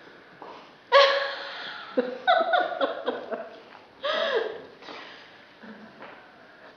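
A performer's wordless vocal outbursts: a loud cry about a second in, then a run of quick, pitched, hiccup-like gasps, then another drawn-out cry that rises and falls in pitch.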